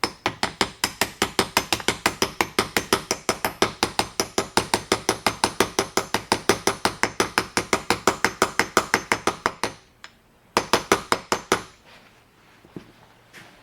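Ratchet wrench clicking evenly, about five clicks a second, as it backs off the clamp nut of a battery terminal; it stops briefly, then clicks again for about a second.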